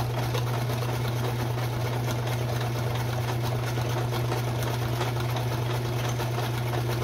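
Kenmore 158.17740 sewing machine running steadily as it sews a zigzag stretch stitch: an even motor hum with rapid needle strokes.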